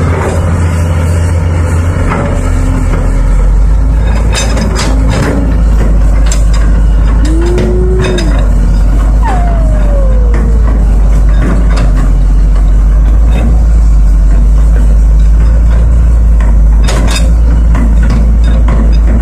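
Caterpillar hydraulic excavator's diesel engine running under load, a loud steady low drone, with knocks of the bucket and rock now and then. Near the middle, a brief tone rises and falls, then a longer one glides down in pitch.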